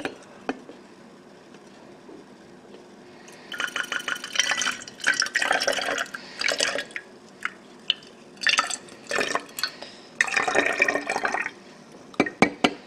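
Water poured into a cup in several gushes, starting a few seconds in. Near the end a run of quick, regular clinks begins, like a spoon stirring against the cup.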